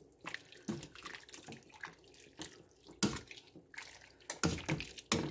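A plastic slotted spoon stirring a chunky, liquid stew in a stainless steel pot. Wet sloshing and stirring sounds come with irregular clacks and scrapes of the spoon against the pot.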